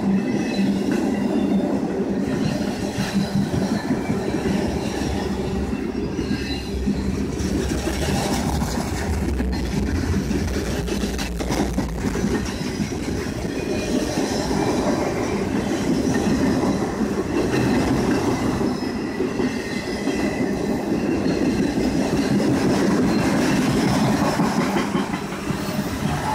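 Freight train of autorack cars rolling steadily past: loud, continuous rumble and clatter of steel wheels on the rails, with high wheel squeal coming and going.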